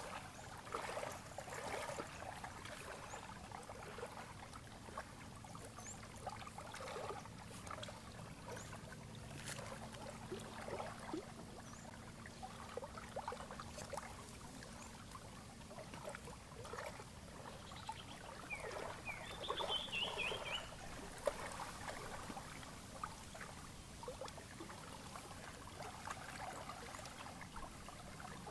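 Faint, scattered rustling and crackling of fingers handling a tiny rough pot and packing it with dry fibrous material, over faint lapping of lake water. A short run of high chirps about twenty seconds in.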